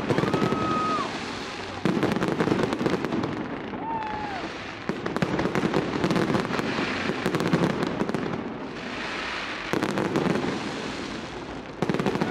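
Fireworks salute: aerial shells bursting with a dense crackle, a fresh volley starting suddenly every few seconds, about two seconds in, again around five and ten seconds, and near the end.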